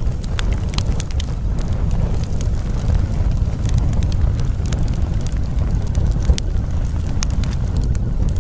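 Crackling fire: a steady low rumble with scattered sharp crackles and pops at irregular intervals.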